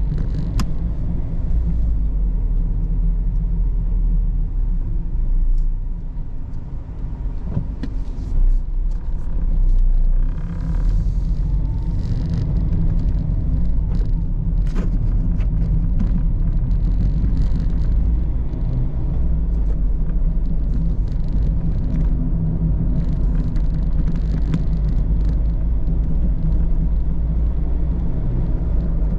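Steady low rumble of engine and road noise heard from inside a Mazda ND Roadster on the move, with a few short knocks and rattles scattered through it.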